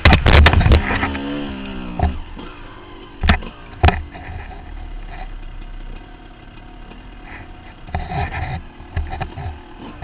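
Dirt bike engine revving up and down over rocky ground, with sharp knocks of the bike striking rock in the first second and again about three to four seconds in. It settles to a lower, steadier run in the middle and revs again near the end.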